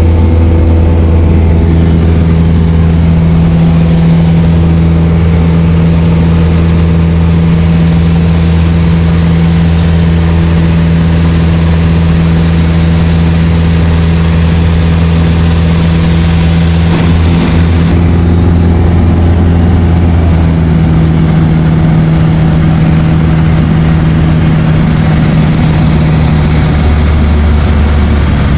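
Light aircraft's piston engine and propeller droning steadily at a constant power setting. The engine note shifts slightly about two-thirds of the way through and dips a little near the end.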